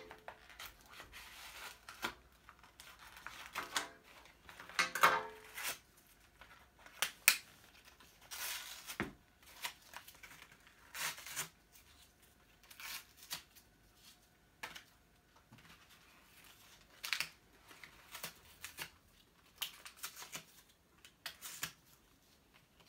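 Plastic packaging crinkling and tearing as a small toy packet is worked open by hand, in short irregular rustles and clicks.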